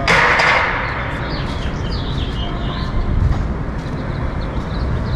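Busy street traffic rumbling steadily. It opens with a loud, sharp hiss that fades out within about a second, followed by a few short, high, falling squeaks.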